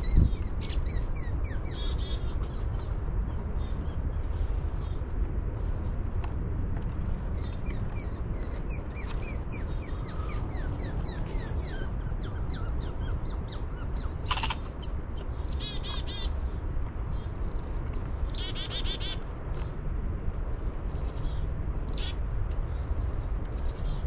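Small songbirds chirping and calling: many short high chirps and a few quick runs of notes, over a steady low rumble. A short thump comes right at the start.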